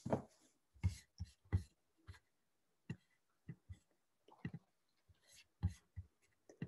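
Soft, irregular taps and clicks close to the microphone, about a dozen of them with gaps between.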